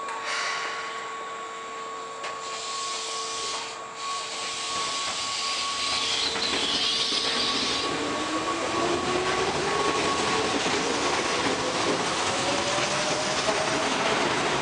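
Keihan 6000 series electric train pulling away from the platform. Its traction motors give a whine that rises steadily in pitch as it gathers speed, over growing wheel and rail noise. There is a short hiss about six seconds in.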